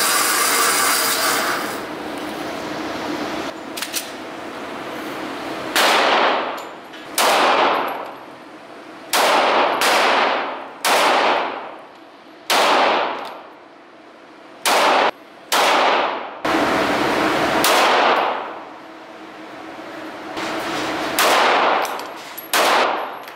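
Glock 19 9mm pistol fired about a dozen times at an irregular pace, single shots with an occasional quick pair, each shot echoing off the walls of an indoor range.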